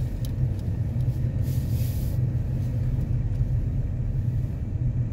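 A car driving slowly, heard from inside the cabin: a steady low rumble of engine and tyres.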